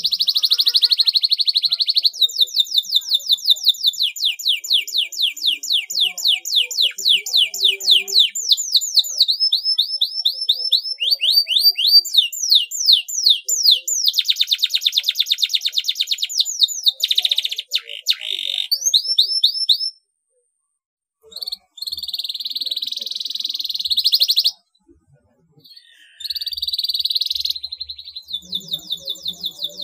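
Domestic canary in full song: long runs of fast trills, each made of rapidly repeated downward-sweeping notes, alternating with steady buzzy rolls. The song breaks off into brief silences about twenty and twenty-five seconds in.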